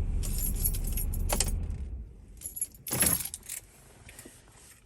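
Keys jangling in a couple of short bursts, the loudest about three seconds in, over a low rumble that fades out about two seconds in.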